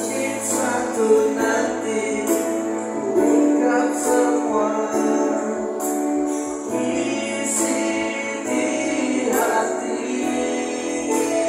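Live band performance amplified through PA speakers: male voices singing into microphones over sustained keyboard-like accompaniment, with a regular high percussion beat about twice a second.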